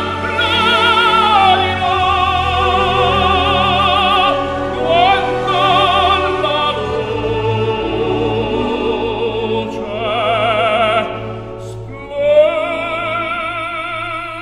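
Background music: operatic singing with strong vibrato over classical orchestral accompaniment.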